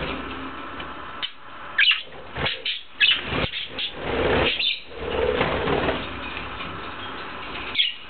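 Pet budgerigars giving short, sharp chirps in a cage, with stretches of fluttering wings.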